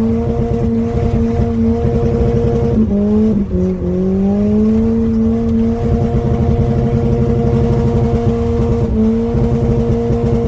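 Subaru flat-four engine held at steady high revs under load. The pitch wavers and drops about three seconds in, climbs slowly back, and dips once more briefly near the end.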